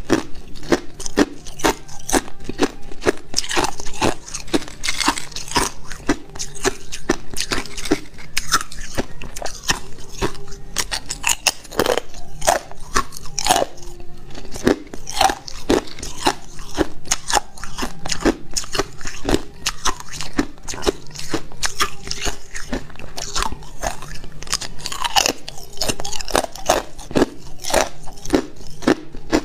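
A person chewing ice, close up: teeth crunching and grinding hard pieces of ice in a dense, irregular run of cracks.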